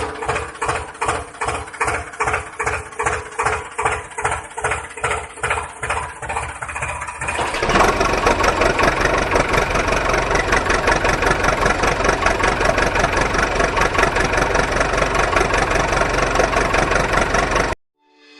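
An engine chugging in slow, even beats about three a second, then running faster and steadier from about seven seconds in, and cutting off abruptly near the end.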